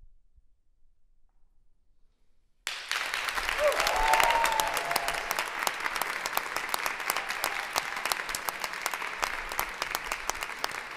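Near silence for about two and a half seconds, then an audience breaks into applause that goes on steadily, with a brief cheer from someone in the audience about a second after the clapping starts.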